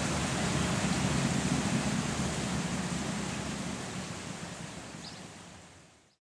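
Steady rush of a river running above flood stage, its water pouring and lapping along the flooded riverbank. The sound fades out to silence near the end.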